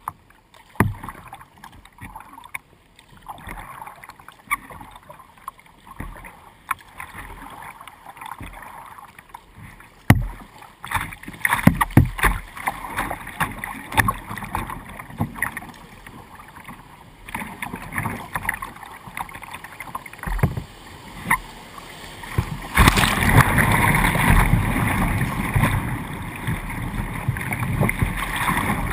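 Splashes and knocks of water against a whitewater kayak's bow and paddle strokes on a moving river. About two-thirds of the way in, the kayak runs into a rapid and the rushing, splashing whitewater becomes loud and continuous.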